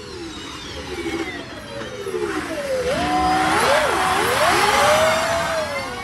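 Electric car motor whine: several tones that glide down in pitch, then swing up and down, over a rushing noise that swells to its loudest about three to five seconds in and eases off near the end.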